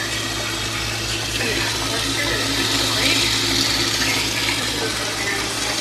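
Steady hiss of green beans and mushrooms cooking in a lidded skillet on an electric stove, with a low steady hum underneath.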